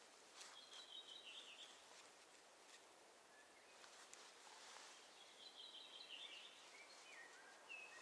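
Faint birdsong over quiet forest ambience: two short, quick chirping phrases about five seconds apart, and a lower falling phrase near the end.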